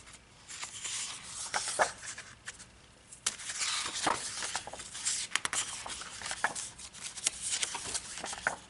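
Sheets of a 6x8 patterned paper pad being flipped and slid over one another: rustling paper with many short flicks and taps as each sheet is turned.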